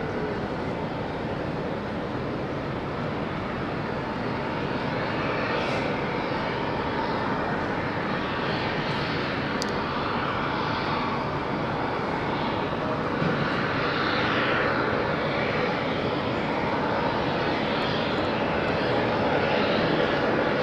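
Seaplane's propeller engine running at high power on its takeoff, a steady engine noise that grows slowly louder.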